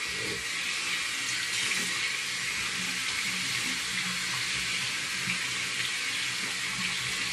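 Bathroom faucet running hot water in a steady stream.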